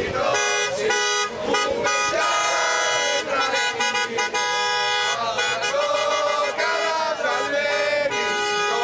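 A man's voice chanting through a megaphone, harsh and distorted, in long held notes that rise and fall in pitch.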